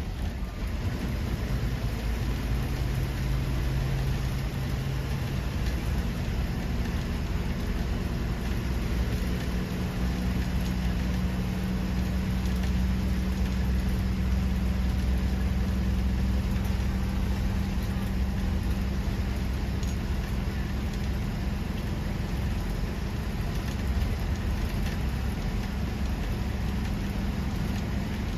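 Bus engine running steadily under road noise. Its note steps up about six seconds in and then holds.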